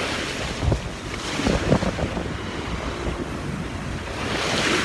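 Sea waves washing on the shore, with wind buffeting the microphone; a wave surges up louder near the end.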